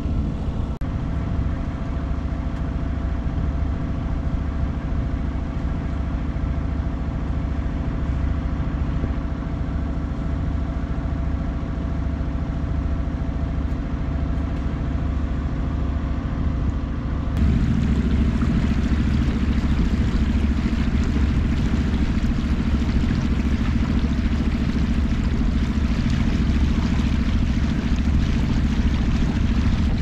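A sailboat's inboard engine running steadily under way, a constant hum. A little over halfway through, the sound jumps to a louder, fuller rush of wind and water with the engine still underneath.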